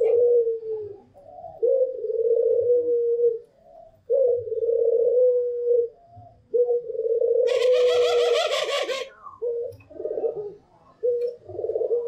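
White puter pelung (Barbary doves) cooing: long drawn-out coos one after another, each one to two seconds long, with shorter coos near the end. A hissing noise lasting about a second and a half sounds over one coo about seven and a half seconds in.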